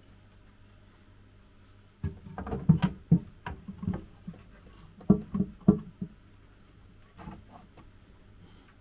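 Dry oak driftwood knocking and scraping against the glass walls and floor of a glass terrarium as it is wedged into place. After about two seconds comes a run of irregular dull knocks lasting about four seconds, then one more faint knock.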